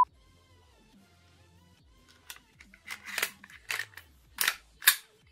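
The slide of an airsoft Glock-style pistol being slid back onto its frame and worked by hand: a run of sharp clicks and a short scraping rattle, starting about two seconds in. Faint background music runs underneath.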